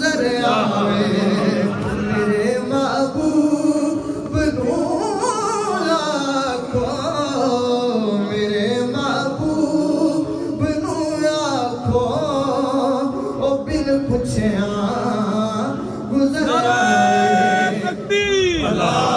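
A man singing a devotional kalam solo into a microphone, with long melodic glides and ornaments. He holds a long note near the end, then lets it fall away.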